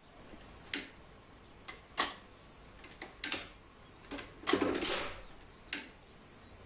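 Old iron tower-clock movement ticking: a sharp mechanical tick about every second and a quarter, with a longer clattering clunk about four and a half seconds in.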